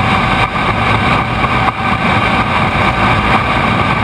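Boeing 777 freighter's twin GE90 turbofans at takeoff thrust during the takeoff roll: a loud, steady rush with a high fan whine on top, over a low rumble of the main gear rolling on the runway.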